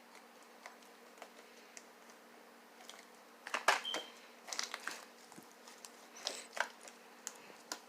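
Slime being handled by hand: irregular soft squelches and clicks, with the loudest cluster of short crackly bursts about halfway through.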